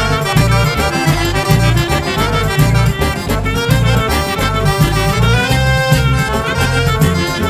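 Music with a steady, strong beat under sustained melody lines.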